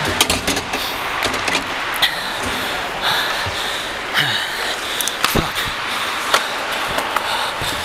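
Ice hockey play: a steady scraping wash of skates on ice, broken by repeated sharp clacks of sticks and puck and a few heavier knocks against the boards.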